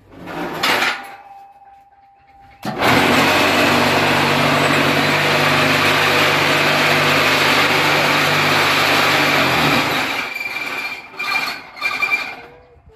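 Homemade cinder-block press's vibrator motor shaking the mould full of concrete mix: a loud, steady rattling buzz that starts suddenly about three seconds in and runs for about seven seconds, then comes in a few short bursts before dying away. A brief burst of noise comes first.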